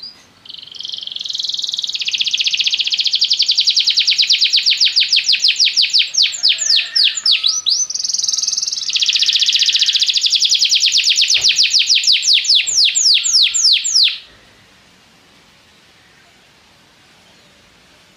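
Domestic canary singing a long song of rapid, evenly repeated trills, about ten notes a second, with a short change of phrase partway through. The song stops about fourteen seconds in.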